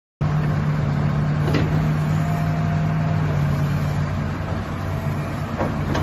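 Hitachi ZX350H excavator's diesel engine running steadily with a constant low hum while the boom and bucket are worked, with two short knocks, about a second and a half in and near the end.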